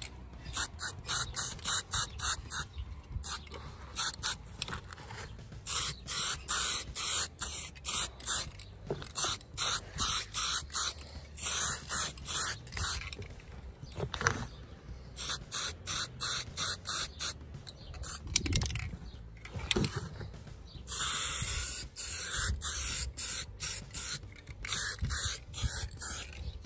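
Aerosol can of black zinc cold-galvanising paint spraying in many short hissing bursts, with a few longer sprays of a second or two.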